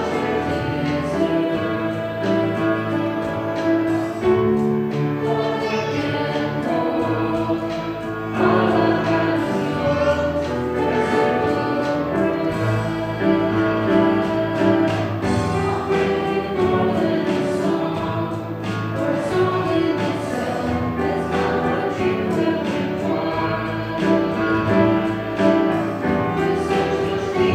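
Choir singing with instrumental accompaniment, over low bass notes that are held and change every few seconds.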